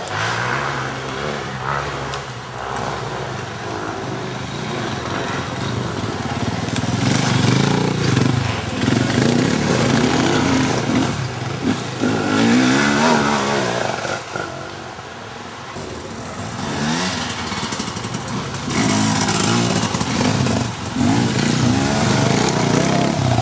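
Off-road motorcycle engines revving hard and easing off as dirt bikes climb a forest trail, the pitch rising and falling again and again. The sound fades for a moment in the second half, then loud revving comes back.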